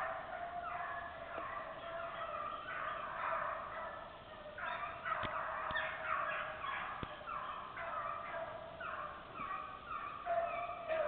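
A pack of rabbit-hunting dogs baying in full cry, many overlapping bawls and yelps without a break, as they run a rabbit's track.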